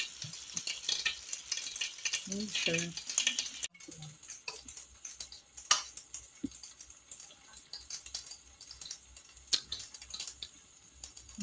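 Pinakbet vegetables simmering in a wok, a dense light crackle and bubbling, which stops abruptly about four seconds in. After that, a few faint clicks of a metal spoon.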